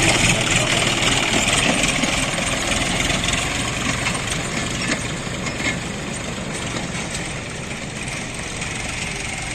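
Diesel engine of heavy site machinery running steadily, easing off slightly in loudness over the second half.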